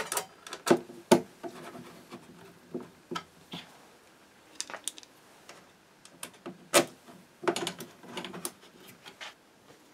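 Hand screwdriver turning mounting screws into a sheet-metal monitor housing and panel, with irregular metallic clicks, taps and scrapes of the tool and the metal parts being handled, busiest near the start and again in the last few seconds.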